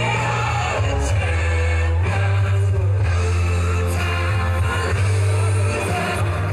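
A song with singing and a heavy bass line, played over a sound system.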